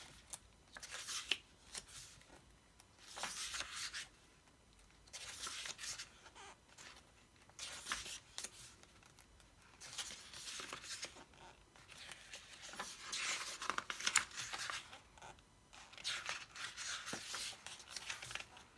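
Pages of a photobook album being turned one after another, giving a paper swish or slide every couple of seconds.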